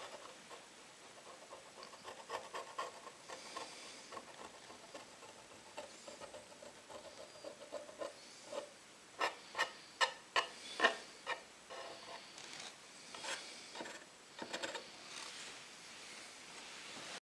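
A thin pointed tool scraping white priming off the bevelled edge of a wooden tray: soft rubbing and scratching, with a quick run of about six sharper scrapes midway.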